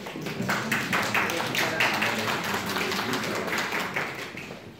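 Applause from a group of people clapping by hand, dense and irregular, fading out near the end, with voices underneath.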